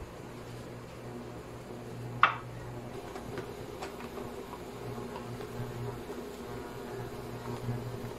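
Light handling of a plastic food tub and plastic spoon on a counter: one sharp knock about two seconds in, then a few faint clicks, over a steady low hum.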